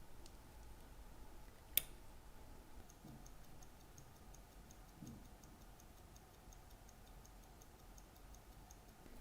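Rolex calibre 1570 watch movement ticking faintly with a fast, even beat, the escapement running. A single sharp click comes just before two seconds in, and the ticking becomes clear about three seconds in.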